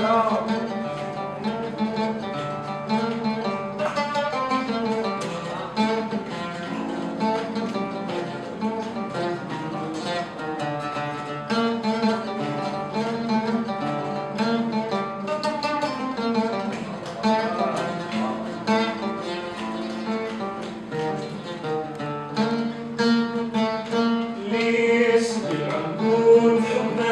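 Instrumental music: a plucked string instrument plays a quick, busy melodic interlude.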